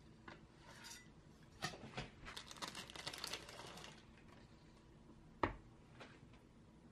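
Metal palette knife clicking and scraping against the metal base disc of a cake pan as it is worked under a cheesecake: a few light clicks, a busy run of small clicks and scrapes in the middle, then one sharper knock about five and a half seconds in.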